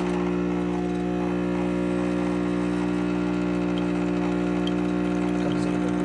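Kenmore semi-automatic espresso machine's pump switching on abruptly and running with a steady hum, forcing hot water through the portafilter to brew a single shot of espresso.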